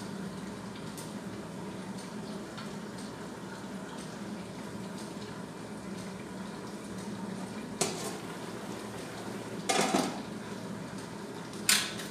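Metal cookware clanking on a gas stove: a pot lid or utensil knocks once about eight seconds in, clatters again around ten seconds, and a quick run of clanks starts near the end, over a steady low kitchen hum.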